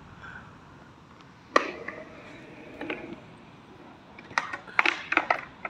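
Scattered sharp knocks and clacks over a quiet background: one about a second and a half in, another near three seconds, and a quick run of them near the end.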